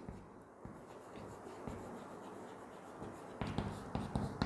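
Chalk scratching and tapping faintly on a chalkboard as a line is written. It starts about three and a half seconds in, after a quiet stretch.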